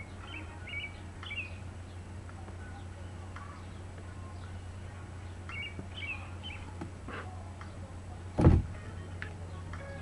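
Small birds chirping now and then over a steady low hum, with one short, loud thump about eight and a half seconds in.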